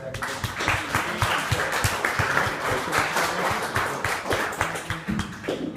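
Audience applauding: a dense spread of hand claps that thins out near the end.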